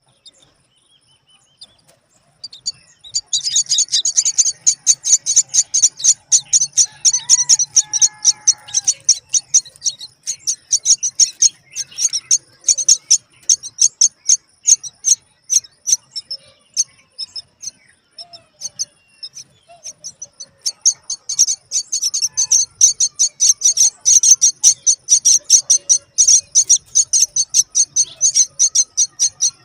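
Common myna nestlings begging: a fast, continuous train of short, high chirps, several a second, that eases off for a few seconds midway and then picks up again. A few lower, sliding call notes come in briefly about eight seconds in.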